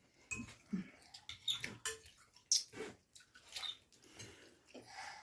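Quiet, irregular eating sounds of people eating spicy instant ramen noodles: short scattered chewing, slurping and small clicks.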